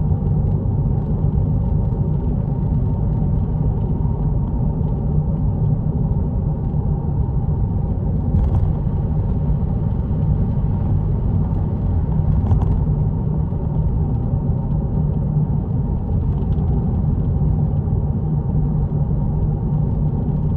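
Road noise heard inside the cabin of a 2003 Honda Fit (GD1) on the move: a steady low drone, the 'gō' sound found on a test drive as an abnormal noise. Two brief clicks come about 8 and 12 seconds in.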